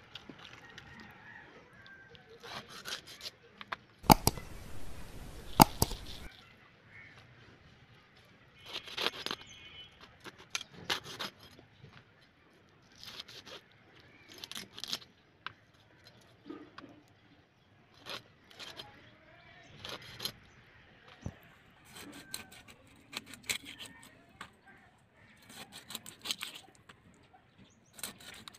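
A rohu carp being cut up and cleaned by hand on an upright boti blade: irregular wet scrapes and slicing sounds of flesh and bone against the blade and the banana leaf. About four seconds in comes a louder two-second stretch of rasping with two sharp clicks.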